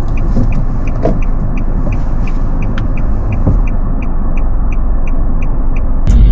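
Car's warning chime beeping rapidly and evenly, about three short high beeps a second, over the low hum of the car cabin: the parking-brake warning, the car having just called out that the hand brake is not released. The beeps stop near the end as something louder comes in.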